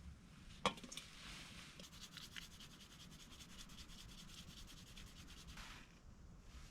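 A single sharp click, then about five seconds of rapid, continuous scraping or rubbing.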